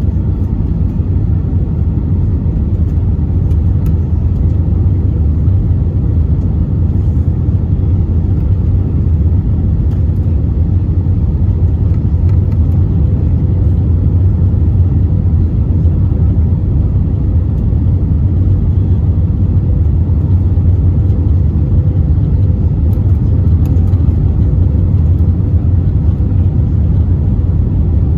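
Steady low rumble of engine and airflow noise inside the cabin of an Airbus A320 airliner in flight on its approach to land, with a faint steady hum above it.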